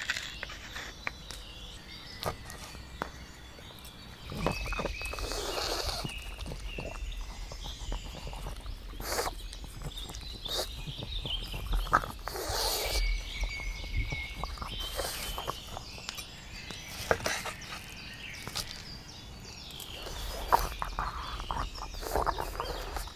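Pug gnawing and chewing on a tomahawk steak bone: scattered clicks and crunches, with a few louder bursts of snuffling breath. Birds sing in the background.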